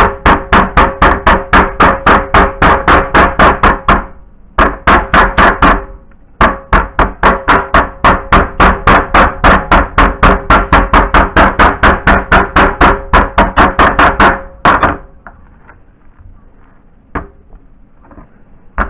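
Metal meat-tenderizer mallet pounding a raw chicken breast on a plastic cutting board to flatten it, about four to five blows a second, in three runs with short pauses about four and six seconds in. The pounding stops about fifteen seconds in, followed by a single knock a couple of seconds later.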